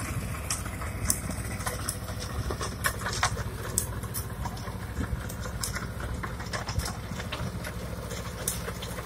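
A 30 hp compact tractor's diesel engine running steadily under load as it drives a rotavator through a flooded paddy field, puddling the mud. Scattered sharp ticks sound over the engine.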